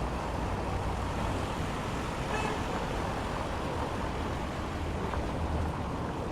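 Steady city traffic noise, a continuous wash of road vehicles.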